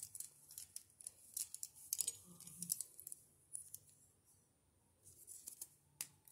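Small hard plastic clicks and rattles of a Beyblade Burst QuadStrike top being taken apart by hand to switch it into low mode. The clicks come irregularly, with a short lull a little past the middle.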